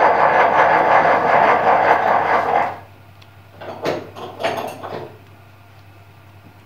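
A loud steady noise that cuts off about two and a half seconds in, followed by a few short scrapes and clicks from plastic quick-release bar clamps being handled.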